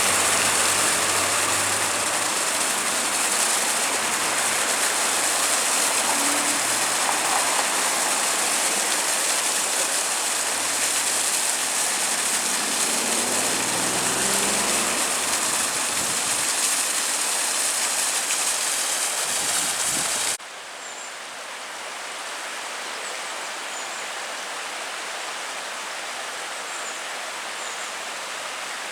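The River Banwy in flood, its fast, high water rushing in a steady, even roar. About twenty seconds in the level drops suddenly and the rushing goes on more quietly.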